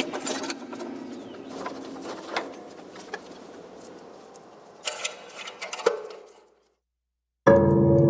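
Hundreds of balls bouncing on four pianos: a dense patter of small impacts over the pianos' sustained ringing, thinning out and dying away after about six seconds. After a brief silence, a loud chord of many ringing tones starts near the end.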